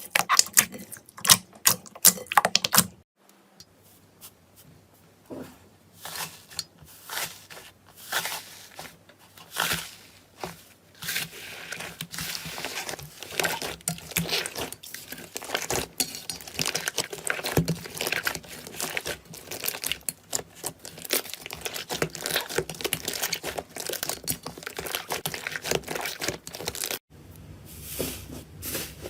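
Slime being handled by hand. A quick run of sharp clicks and pops comes first. After a short break it gives way to crackling and crinkling that grows dense from about ten seconds in, and there is another brief break near the end.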